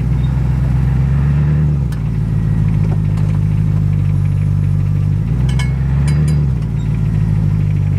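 BMW 645Ci V8 running, its low note shifting twice, with a few sharp clicks: one about two seconds in and a couple more a little past the middle. The owner takes the clicking for a sound from the rear differential.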